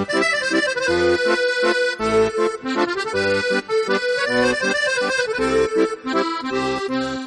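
Background music led by an accordion, with held melody notes over a steady, regularly pulsing bass accompaniment.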